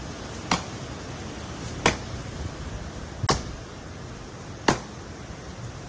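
Hand-held blade chopping into fallen tree branches: four sharp chops, about one every second and a half.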